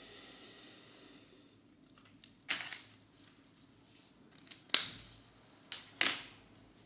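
Felt-tip marker scratching on paper for about the first second and a half, then three sharp clicks, each with a short fading tail, as the markers are handled.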